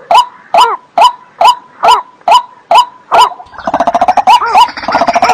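Waterbird calling: a short, loud call repeated about twice a second, each note arching in pitch. About three and a half seconds in, a second, rapid stuttering run of calls joins in over it.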